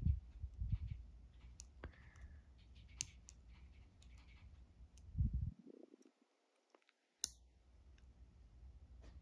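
Faint, scattered clicking and scratching of a hook pick probing the pins of an Ultion 3-star dimple lock cylinder, with a few low handling bumps and one sharper click a little past seven seconds in.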